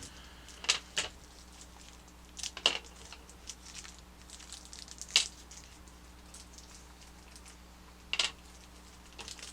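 Plastic packaging being handled and opened: a handful of short, sharp crinkles and clicks, spaced a second or more apart.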